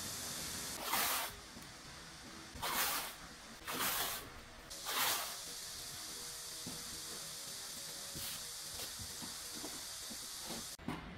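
A wide roll of adhesive tape being pulled off in strips: four short rasping pulls about a second apart, then a long steady hiss of tape unrolling that cuts off abruptly near the end.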